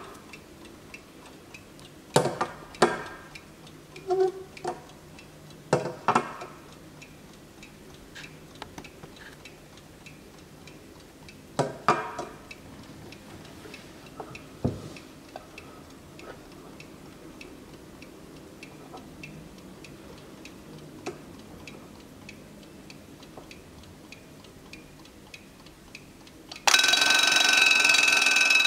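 Vintage Junghans mechanical alarm clock ticking steadily, with several sharp clicks and knocks from handling its back and winding keys in the first fifteen seconds. About two seconds before the end the alarm goes off, a loud, steady bell ringing.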